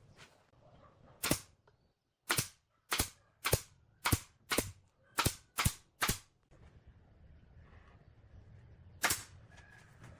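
About ten sharp knocks on wood: one, then a quick run of eight roughly half a second apart, then a single knock near the end, over a faint low background hum.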